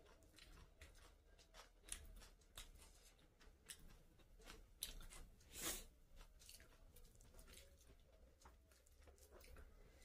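Faint chewing, and small clicks and crackles of fingers working rice and chicken on a plate, with one louder crackle about halfway through.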